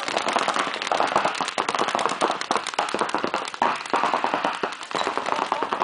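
Paintball markers firing: a rapid, unbroken stream of sharp pops, many a second.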